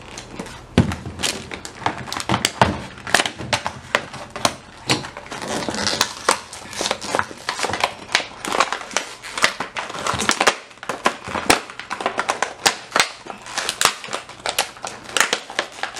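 Clear plastic blister packaging of a toy doll crackling and crinkling with many sharp clicks as it is handled and opened.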